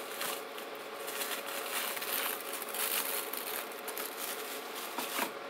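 Cellophane wrappers on 100-count firecracker strips crinkling as the strips are handled and shuffled by hand, in irregular short rustles.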